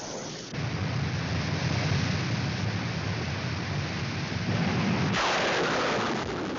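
Cartoon sound effect: a long, loud, noisy rumble that begins about half a second in and breaks off after about four and a half seconds into a hissing sweep that falls in pitch and fades.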